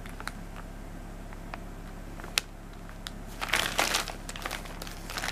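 Clear plastic packaging bag crinkling as it is handled: scattered light ticks, one sharp click a little over two seconds in, then a burst of crinkling about three and a half seconds in and another near the end.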